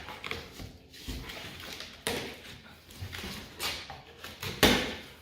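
Knocks and scraping from handling a cardboard shipping box, four or five irregular knocks about a second apart, the loudest near the end.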